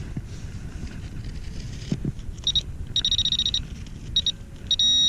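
Handheld metal-detecting pinpointer giving a high-pitched electronic tone, in short beeps from about halfway in that quicken into a near-continuous tone near the end: metal is still in the hole. Before that, low rumbling and a couple of knocks from digging in the dirt.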